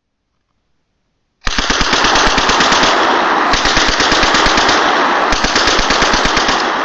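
FMK-3 submachine gun firing 9 mm Parabellum on full automatic: a long run of rapid shots that starts suddenly about a second and a half in and goes on unbroken, beginning to fade near the end.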